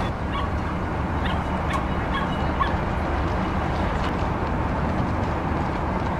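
Steady rumble of street noise, with several short, high animal calls in the first three seconds.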